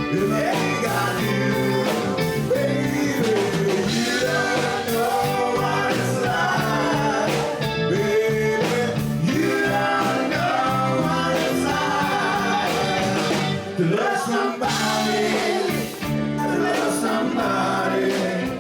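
Live band music with a singer: a song played on guitar and other instruments with continuous sung melody.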